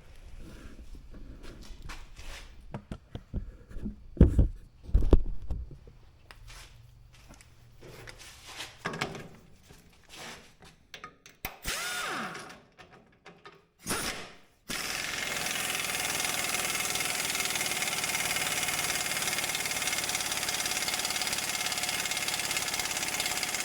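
Scattered clicks and two loud knocks of hand work on the skid steer's attachment plate, then a steady mechanical noise with a faint whine starts suddenly about fifteen seconds in and runs on without change.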